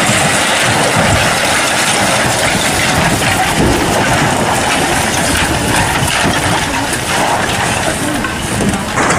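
Steady rushing, crackling din of old buildings' earthen walls and roof tiles crumbling and sliding down under strong earthquake shaking.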